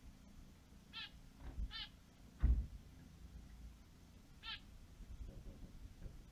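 Three short, nasal finch calls, about a second apart and then once more near the end, and a single dull thump about two and a half seconds in.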